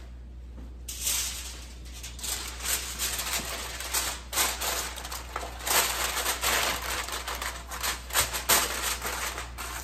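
Aluminium foil crinkling and crackling in quick irregular clicks as a sheet is spread over a metal roasting pan and pressed down around its rim, starting about a second in.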